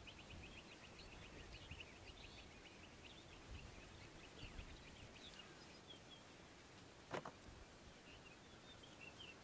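Faint outdoor ambience near silence: a rapid high trill of about ten ticks a second fading out about two seconds in, then scattered short high chirps of small birds. A single sharp click sounds about seven seconds in.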